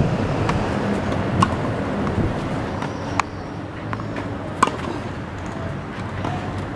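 Tennis balls struck by a racket in a rally: sharp pops a second or two apart, the loudest about one and a half, three and four and a half seconds in, over a steady low background rumble.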